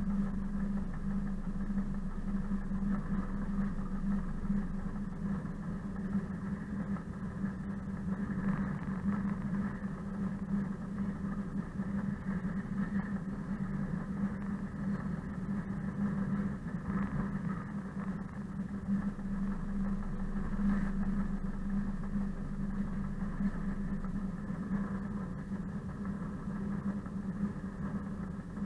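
Class 742 diesel-electric locomotive's six-cylinder diesel engine running steadily as the locomotive rolls along the track: an even, unbroken drone.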